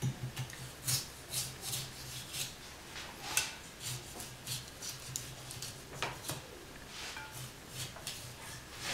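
A wide rind-trimming knife scraping and slicing through the hard rind and fat of a cured ham in a quick, irregular series of short strokes, about two to three a second. The ham is being cleaned of its rind to open it for cutting.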